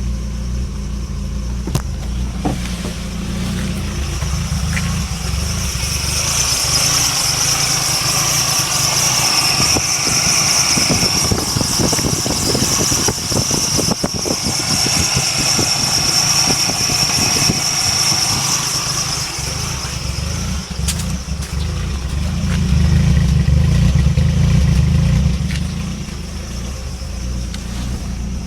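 1996 Nissan pickup's engine running at a rough idle. A high steady whine sits over it from several seconds in until about two-thirds of the way through, and the low engine sound swells louder near the end.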